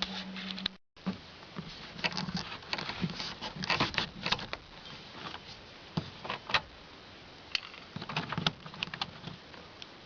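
Irregular small clicks, taps and scrapes of hand work on a pickup's interior door panel and window crank handle, coming in uneven clusters.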